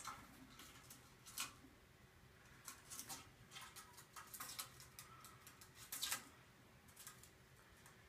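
Near silence with faint, scattered clicks and scratches.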